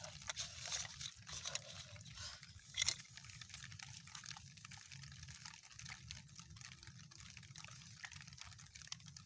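Muddy water dripping and trickling, with small splashes and wet clicks as hands work in a water-filled hole in mud. A louder, short noise comes about three seconds in.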